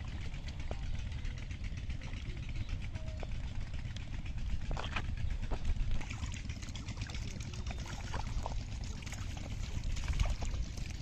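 Hands and bare feet splashing and squelching in shallow muddy water, with a few sharper splashes about five seconds in and near the end, over a steady low rumble like a running engine or wind on the microphone.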